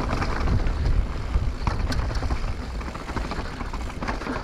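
Mountain bike descending a natural dirt trail: tyres rolling over dirt and rock, with the bike's frame and parts clattering in scattered clicks and knocks. Wind buffets the camera microphone as a steady low rumble.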